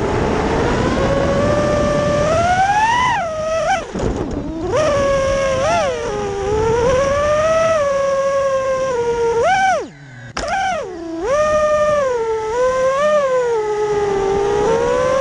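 Rebuilt FPV quadcopter's brushless motors whining in flight, the pitch rising and falling with throttle. The sound drops away briefly about four seconds in and almost cuts out around ten seconds in before spooling back up.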